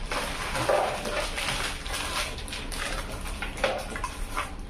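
Plastic snack wrappers crinkling and rustling as a hand rummages through a box of packaged snacks, a steady crackle of many small clicks.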